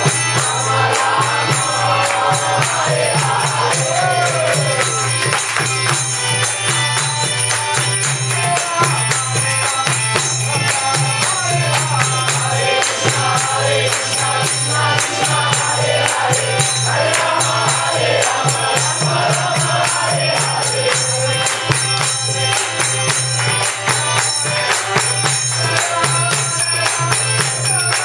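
Devotional group chanting (kirtan): several voices singing together over a steady ringing of small hand cymbals and a drum.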